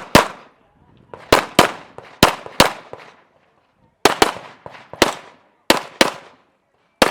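A handgun firing about eleven shots in an IPSC practical-shooting string, mostly as quick pairs (double taps) with short pauses between pairs. Each shot is a sharp crack followed by a brief echo.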